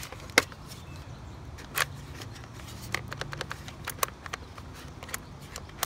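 Sharp plastic clicks and small rattles from a toy water bead blaster being handled, its buttons and latches pressed and snapped: one loud click about half a second in, another near two seconds, and a quick run of lighter clicks around three seconds.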